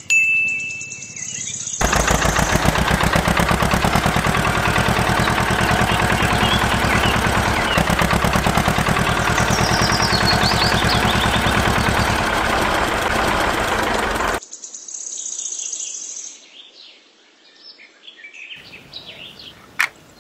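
A small motor-driven machine runs with a rapid, even pulsing, starting abruptly about two seconds in and cutting off abruptly at about fourteen seconds. Birds chirp before and after it, and a single sharp click comes near the end.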